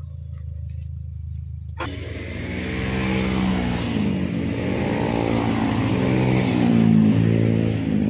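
Toyota Vios exhaust through a GReddy chambered muffler as the car drives by under acceleration, its engine note rising and falling and growing louder toward the end. A sharp click about two seconds in.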